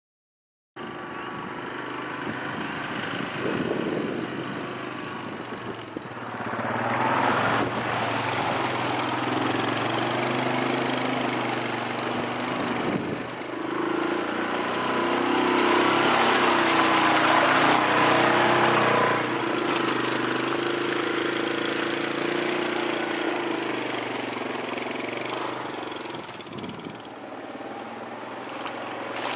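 ATV engine running, its pitch rising and falling with engine speed, getting louder a few seconds in.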